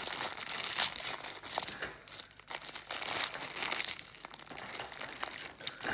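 A handful of 50p coins clinking against each other as they are tipped out of a plastic coin bag into a hand and handled: irregular sharp metallic clinks with a brief high ring, the loudest about one and two seconds in and again near four seconds.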